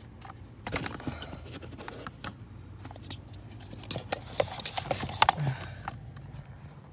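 Light clicks, clinks and knocks of blower-area parts being handled and fitted under the dashboard, busiest about four to five seconds in, over a low steady hum.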